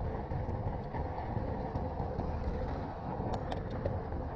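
Steady wind on a handlebar-mounted action camera's microphone and tyre rumble from a road bike rolling on asphalt, with a few light clicks about three and a half seconds in.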